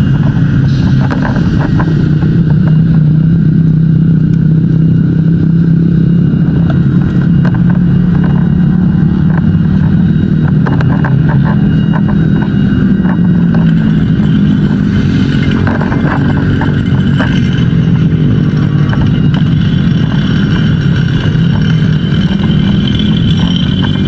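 A large engine running steadily at raised speed, loud and close, with a few faint clicks; its pitch starts to rise near the end.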